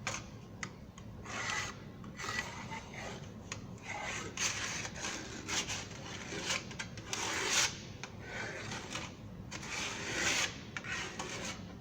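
Steel compass point scribing a circle into sheet metal: scratchy rasping in a string of uneven strokes as the point is dragged around.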